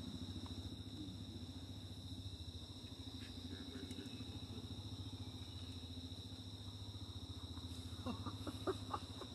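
A small engine idling steadily in the background, its low hum pulsing evenly, under a steady high-pitched insect drone. A few short clicks come near the end.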